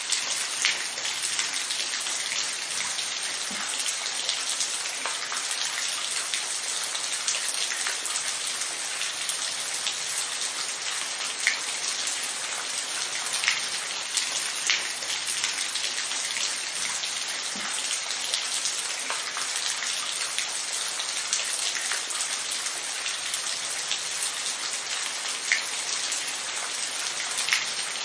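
Steady rain falling, a constant hiss with scattered single drops ticking sharply every second or so.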